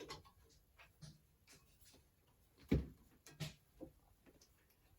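Scattered light clicks and knocks of tools and metal parts being handled at a milling machine, the loudest a dull knock a little under three seconds in. The mill itself is not running.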